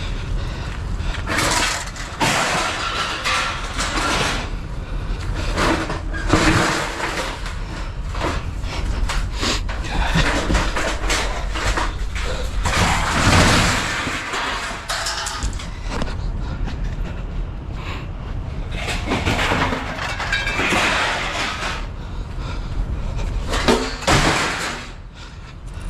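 Irregular knocks, bangs and clatter of objects being moved and handled, over a steady low rumble.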